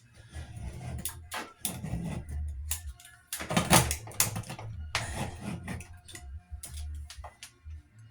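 Hand tool scraping and knocking at old caulk along a bathroom sink top to break the seal, with a series of irregular sharp clicks and knocks, the loudest a cluster near the middle.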